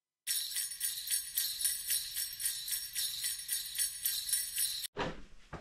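Jingle bells shaken in a steady rhythm, cutting off suddenly near the end, followed by a brief rustle and a knock.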